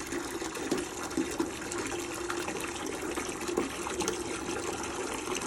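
Water running steadily into a bucket as it is rinsed out.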